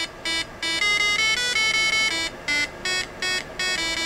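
PICAXE microcontroller playing a ringtone-style tune through a small 8-ohm speaker: a quick melody of short electronic beeps that change pitch from note to note, with brief gaps between them.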